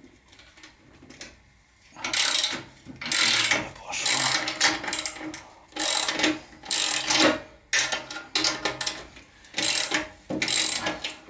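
Hand ratchet wrench on a 9/16-inch exhaust clamp nut, loosening it in repeated strokes about a second apart, clicking on each swing. The strokes start about two seconds in.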